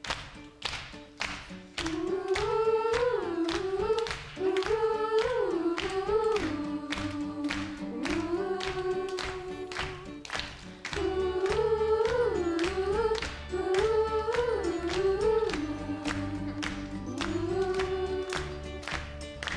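Live worship band playing the introduction of a song. A steady beat runs throughout, a melody line comes in about two seconds in, and a heavier bass joins about eleven seconds in.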